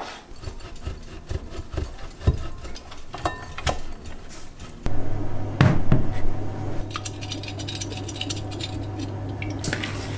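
Knife slicing through sausage onto a wooden cutting board, a run of irregular knocks as the blade meets the board. About halfway a steady low hum comes in, and a plastic bowl knocks and scrapes on a granite countertop.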